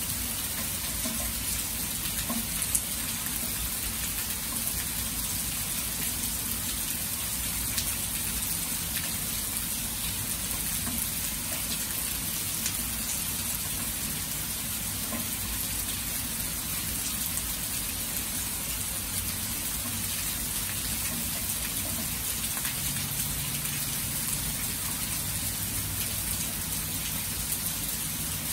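Heavy rain falling steadily onto open water and grass: an even, continuous hiss with scattered drop ticks.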